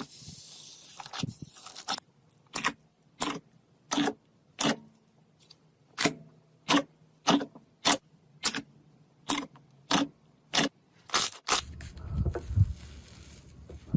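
Slime being pressed by hand in a steady rhythm, a short crackling pop with each press, over a dozen in a row about two-thirds of a second apart. Near the end come a few soft low thuds.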